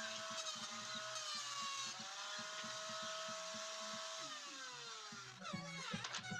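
Handheld electric woodworking power tool running with a steady motor whine whose pitch sags briefly about two seconds in, then switched off and winding down, its pitch falling, a little after four seconds in. Music comes in near the end.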